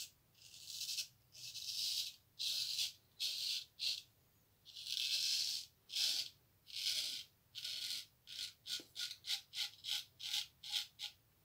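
Freshly honed 8/8 hollow-ground straight razor scraping through lathered three-day stubble on its first trial shave: a series of strokes, longer ones at first, then short quick strokes about three a second in the last few seconds.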